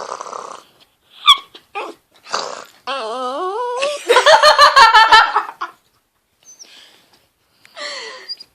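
A pet dog whining and moaning: a short cry, then a drawn-out wavering moan that rises in pitch about three seconds in, the sound of a frightened dog. A person laughs alongside.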